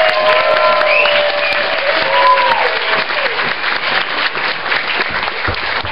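Crowd applauding, with whoops and shouts over the clapping in the first few seconds.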